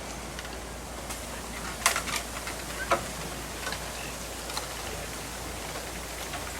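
Bamboo stalks clicking and knocking against each other in a light wind, with a few sharp clicks about two and three seconds in over a steady rustle.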